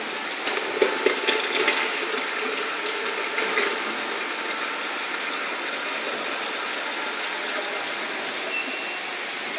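Milk vending machine dispensing: a stream of milk pours from the nozzle into a plastic jug. The splashing is loudest over the first few seconds, then settles into a steady pour over a constant background hum.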